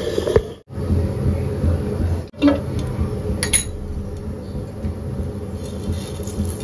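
Steady low kitchen hum, cutting out briefly twice in the first couple of seconds. Near the end come a few faint ticks as white sesame seeds are sprinkled into hot ghee in a frying pan.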